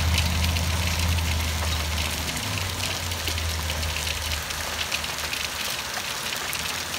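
Hail pelting down, a dense patter of many small ticks. Underneath is a low steady hum that fades out about four seconds in.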